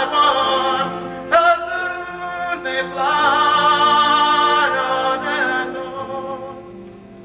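A teenage boy singing solo, holding long notes with vibrato over a sustained accompaniment, moving to new notes about one and a half and three seconds in and fading toward the end.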